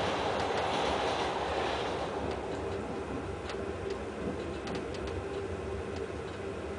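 Ride noise inside a moving passenger train: a steady rumble of wheels on rails with a faint steady hum. It eases about two seconds in, and scattered light clicks follow.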